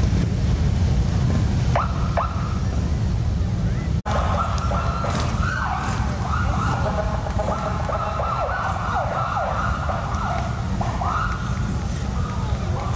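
Police motorcycle sirens over a low rumble of engines. Two short siren chirps sound about two seconds in. After a brief dropout, several sirens wail together, sweeping up and down in pitch for most of the rest.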